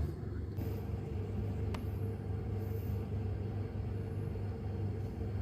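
Steady low mechanical hum, with one faint click a little under two seconds in.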